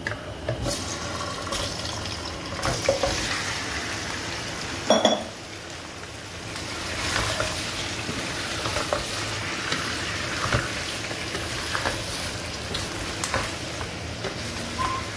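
Raw chicken pieces sizzling as they brown in hot oil in a non-stick wok, with a wooden spatula stirring and scraping against the pan. A steady frying hiss runs under scattered clicks, with one louder knock about five seconds in.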